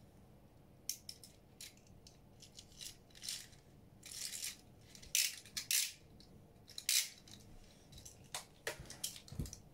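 Plastic Beyblade tops and launcher being handled: scattered sharp clicks and brief scraping rustles, several in quick succession.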